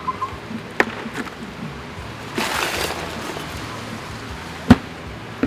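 Tent being put up: several sharp knocks and clacks, the loudest about three-quarters of the way in, and a brief rustle about halfway through.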